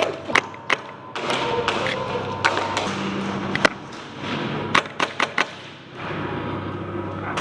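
Airsoft guns firing during close-quarters play: a scatter of sharp cracks and knocks at uneven spacing, with a quick cluster of them about two-thirds of the way through, over a steady low hum.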